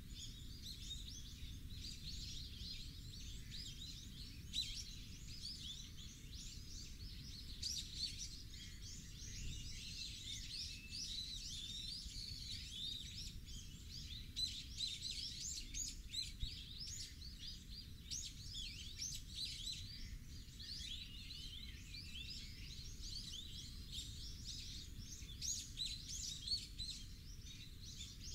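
Many birds chirping and calling in a dense, unbroken chorus, over a steady low rumble.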